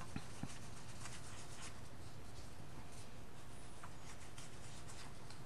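Fingers rubbing and handling a die-cut cardstock heart, with light papery scratching throughout and two small taps near the start.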